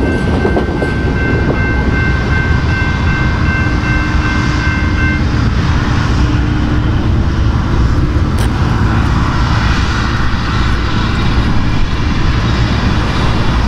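A railroad crossing's electronic bell dings steadily over the rumble of a freight train moving away, and the bell stops about five seconds in. The train's rumble carries on.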